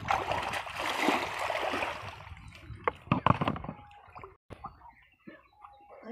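Water splashing and sloshing for about two seconds, then a few sharp knocks as a hand-line fishing reel is set down into a plastic basin.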